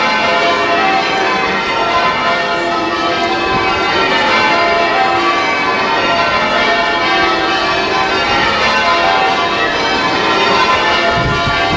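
Church bells change ringing: a ring of full-circle bells sounding in steady rotation, each bell struck in turn so the strokes overlap into a continuous pealing. A low rumble joins near the end.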